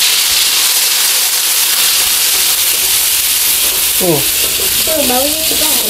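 Shallots, garlic, chilli and dried anchovies sizzling steadily in hot oil in a wok, stirred with a wooden spatula: the aromatics being fried until fragrant for fried rice. A voice comes in over the sizzle near the end.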